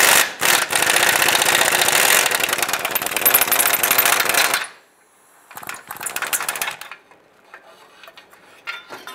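Power wrench with a 15 mm socket spinning off a rusty exhaust flange nut on a catalytic converter. It gives a fast, hammering rattle for about four and a half seconds, then a shorter burst of about a second, and a few light clicks near the end.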